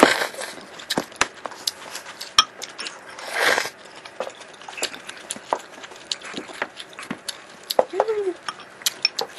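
Irregular light taps and clicks of a baby hitting a small spoon and her hands on a tabletop, mixed with the small sounds of a bowl being handled. There is a short breathy noise about three and a half seconds in and a brief vocal sound near the end.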